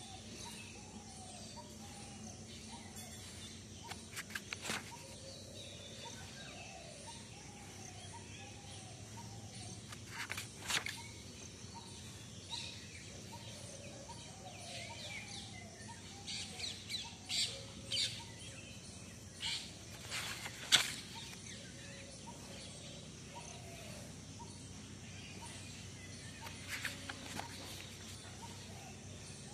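Faint background with birds chirping and calling, and now and then the brief rustle and knock of spiral-notebook paper pages being turned and handled, the loudest about two-thirds of the way through.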